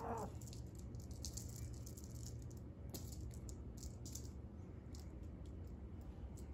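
Faint, light rattling and rustling of a feather wand cat toy being shaken, in quick irregular ticks that thin out after about four seconds, over a low steady hum.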